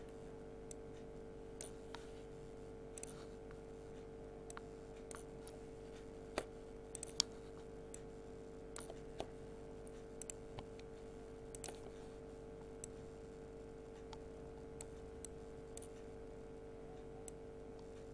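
Computer mouse clicking now and then at irregular intervals, a few dozen short sharp clicks, over a steady faint electrical hum.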